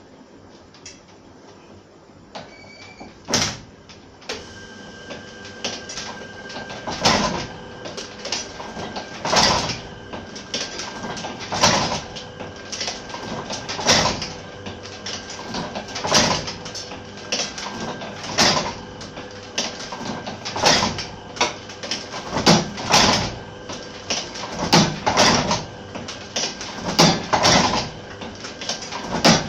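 Fifty-year-old platen letterpress running, with a heavy clack about every two and a quarter seconds as each sweet-box carton is printed, lighter ticks in between, and a steady hum. The rhythm picks up about four seconds in.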